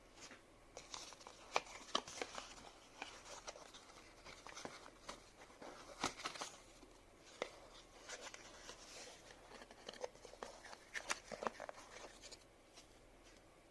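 Plastic packaging crinkling and rustling as it is handled, with irregular sharp clicks and taps of small hard plastic parts. It stops shortly before the end.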